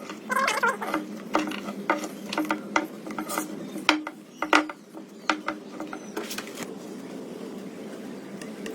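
Hand work on wood: a run of irregular clicks, taps and rasping scrapes over a steady low hum, thinning out after about six seconds.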